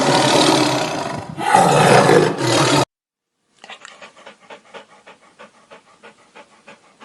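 A large animal's loud, rough roar in two long pushes, cutting off suddenly a little under three seconds in. After a short silence comes faint, fast, rhythmic panting, about five breaths a second.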